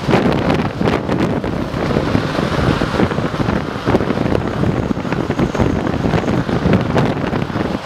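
Panavia Tornado GR4's twin RB199 afterburning turbofans at take-off power with the afterburner lit: a loud, ragged jet roar with rapid crackling.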